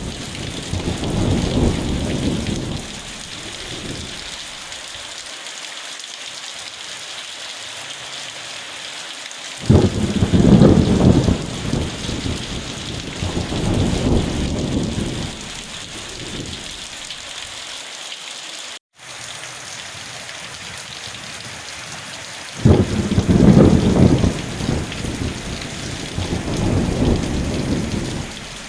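Steady heavy rain with rolling thunder. A peal dies away in the first few seconds, and two more break suddenly, about a third of the way in and again near three-quarters, each rolling in swells for several seconds.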